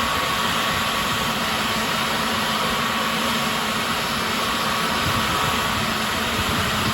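Airbus A321neo's Pratt & Whitney PW1100G geared turbofans running steadily: an even jet hiss with a steady whine on top that fades slightly.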